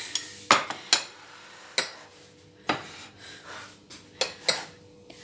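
Ceramic bowls and a metal spoon clinking and knocking on a countertop: about six sharp clinks at irregular intervals.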